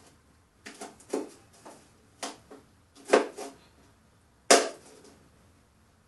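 Kitchen knife chopping a chili pepper into small pieces on a board: several irregular knocks of the blade against the board, the loudest about four and a half seconds in.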